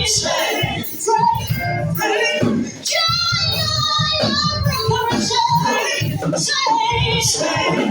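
Live gospel worship music: singing voices over a steady pulsing accompaniment.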